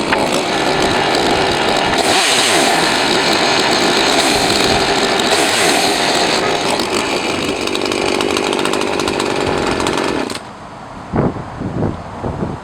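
Husqvarna 543 XPG two-stroke chainsaw running loud and steady, its sound shifting about two seconds in and again after six seconds, then cutting off suddenly near the end. A few gusts of wind then thump on the microphone.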